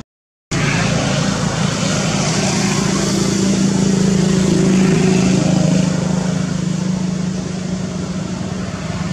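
A motor engine running steadily, with a low hum. It cuts in abruptly about half a second in, grows louder toward the middle and eases off slightly.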